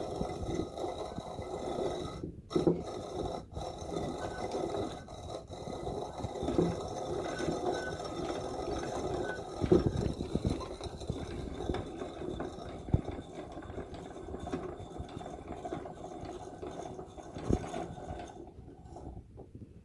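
Old coffee grinder grinding coffee beans at a fine setting: a steady scraping, rasping grind with irregular knocks, stopping near the end.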